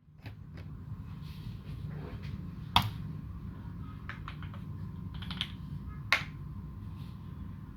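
Slow, scattered keystrokes on a custom UTD360C mechanical keyboard with modded, lubed Alpaca v2 linear switches and GMK Dolch keycaps: soft muted clacks, with two louder key strikes about three and six seconds in, over a steady low hum.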